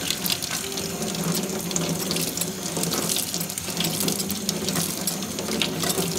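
Kitchen tap running into a sink as hands rinse a metal utensil and then a root vegetable under the stream, with many small clicks and scrapes against the water.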